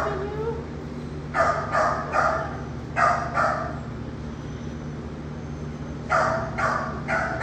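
Dog barking in two quick runs of several sharp barks, over a steady low hum.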